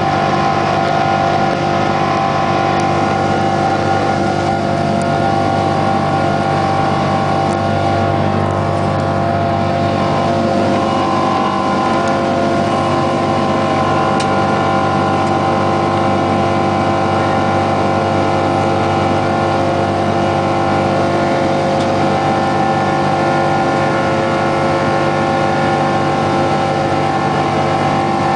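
Boeing 777 jet engines running at climb power just after takeoff, heard inside the passenger cabin: a loud, steady noise with several steady humming tones.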